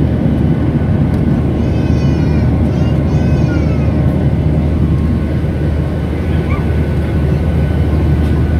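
Steady roar of a jet airliner's turbofan engines heard in the cabin from a seat beside the engine during the climb after take-off, a low rumble with a faint steady hum. About two seconds in, two short high-pitched cries falling in pitch rise above it.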